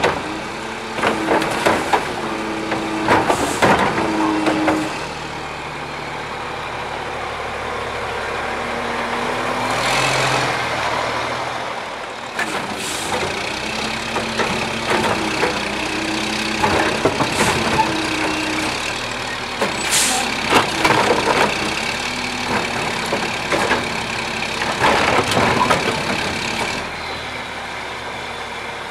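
Mack LE garbage truck's diesel engine running, its note rising and falling as it drives the hydraulics of the Curotto-Can cart tipper. Several clusters of knocks and bangs as plastic wheeled carts are lifted, shaken out over the hopper and set back down.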